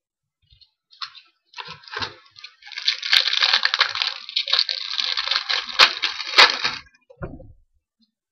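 A trading-card pack wrapper being torn open and crinkled, a rustling crinkle lasting several seconds with a few sharp clicks, ending shortly before the end.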